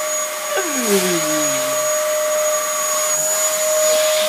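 Hoover vacuum cleaner motor running steadily: a loud, even whine over rushing air, with a brief falling tone about half a second in.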